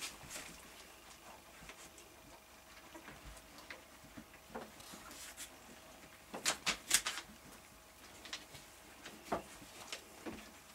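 Week-and-a-half-old puppies squeaking and whimpering off and on, with a cluster of louder squeaks a little past halfway.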